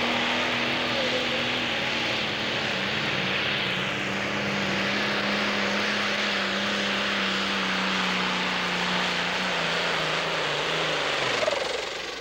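Diesel engine of a green John Deere pro stock pulling tractor running flat out under full load as it drags the weight sled. The pitch sinks slowly, steps down about ten seconds in, then falls away and the noise dies down near the end as the pull finishes.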